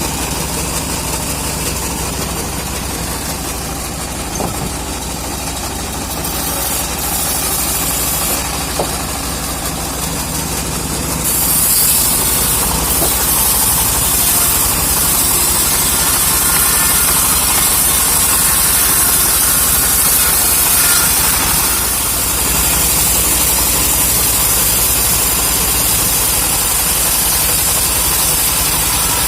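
An engine running steadily; about twelve seconds in it gets somewhat louder and a bright hiss joins it.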